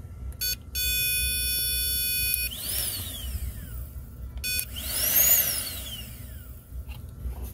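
A new secondary air injection pump on a 2006 Toyota Tacoma 2.7L, powered directly with a power probe: twice its electric motor whines up quickly and then winds down slowly as it coasts, showing that the new pump runs. Before that comes a steady high electronic tone lasting about a second and a half.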